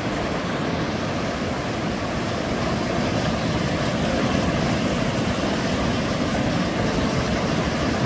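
A fast mountain stream rushing over rocks, a loud, steady rush of water.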